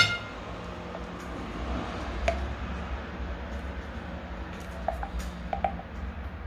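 Kitchenware clinking: a sharp ringing clink at the start, then a few lighter clinks and taps over a low steady hum.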